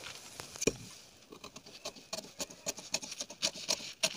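Scissors cutting through folded paper pattern in a series of short, crisp snips, with the paper rustling and sliding under the hand that holds it flat. The snips come closer together from about halfway in.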